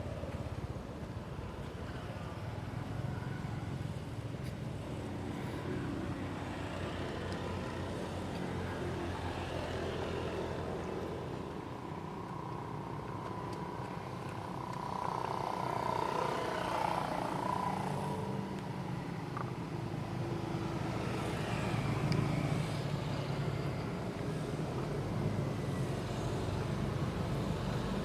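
Motor vehicle engine noise, a steady low rumble that grows louder about halfway through.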